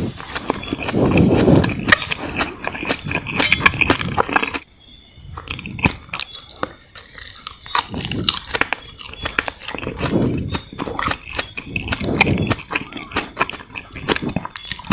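Close-miked chewing of sugar-coated jelly candies: wet, squishy mouth sounds with many small clicks and smacks. They come in bouts about every two seconds, with a short lull about five seconds in.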